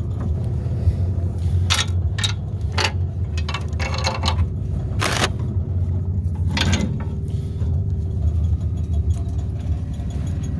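2002 Ford Ranger idling with a steady low rumble. Several short sharp clicks and scrapes of handling come over it, the loudest about five seconds in.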